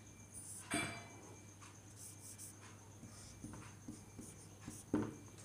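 Marker pen writing on a whiteboard, faint short scratching strokes as a circuit symbol is drawn, one a little louder just under a second in.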